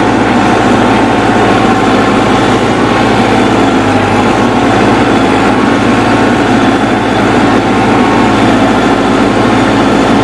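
Massey Ferguson 385 tractor's diesel engine running steadily while the tractor drives across a field.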